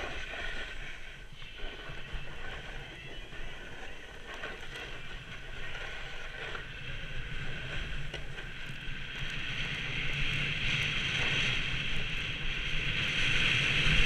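Edges hissing and scraping over groomed snow during a fast downhill run, with wind buffeting the camera's microphone as a low rumble. The hiss grows louder over the last few seconds.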